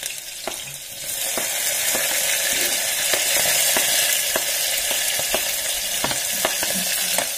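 Green chilies going into hot mustard oil with frying onions: the sizzle jumps up about a second in and stays loud and steady. A few light knocks of the knife and utensils against the board and pot sound through it.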